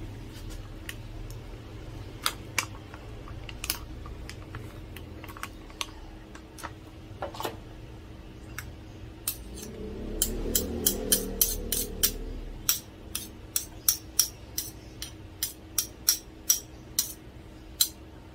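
Metal spoons clinking and scraping against each other and against a glass bowl as thick chili paste is scraped off and stirred into a sauce. Scattered clinks at first, then a quick run of sharp clinks about halfway in.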